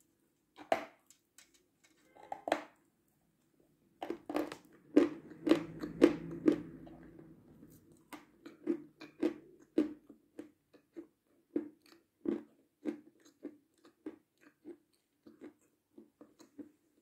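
Somewhat hard, crisp meringue being bitten and chewed close to the microphone: sharp crunches, a dense run of loud ones a few seconds in, then steady crunching about twice a second.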